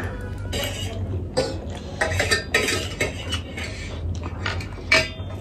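Forks and spoons clinking and scraping against metal dinner plates as two people eat, with irregular short clicks.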